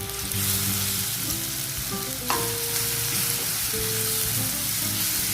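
Chopped nendran banana sizzling in ghee in a hot pan as it is stirred and sautéed, with one sharp knock a little over two seconds in.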